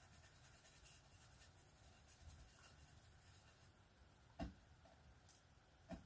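Faint soft rubbing of a foam ink-blending brush worked over a stencil on card, with two light knocks near the end.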